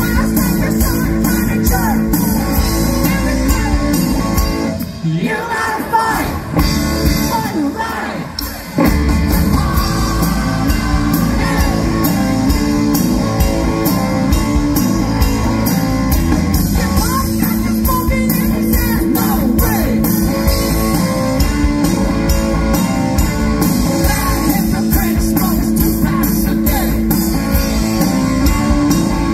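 Rock band playing live, with lead vocals, electric guitar and drum kit. About five seconds in the bass and drums drop out for a few seconds, leaving a thinner break with the voice, and the full band comes back in at full level about nine seconds in.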